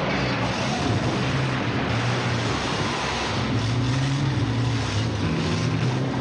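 Heavy truck engine revving, its pitch rising and falling, over a crash of shattering windshield glass and tumbling plastic jerry cans, then water splashing as a car goes into the harbour.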